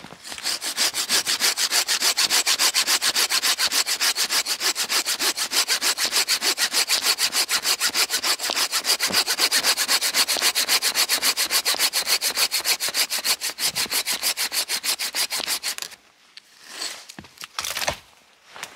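Small hand saw cutting through a dead conifer branch, in quick, even back-and-forth strokes of about three a second. The sawing stops about three seconds before the end, followed by a few light rustles and knocks.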